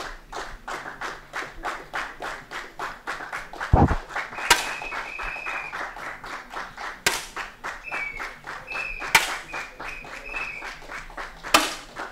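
Audience clapping along in a steady rhythm in a large hall. A few louder sharp cracks of air rifle shots cut through, the first about four seconds in. Brief high tones follow some of the cracks.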